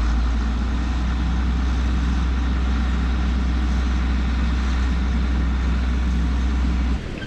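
Large farm vehicle engine idling steadily with a deep low hum; the sound cuts off abruptly near the end.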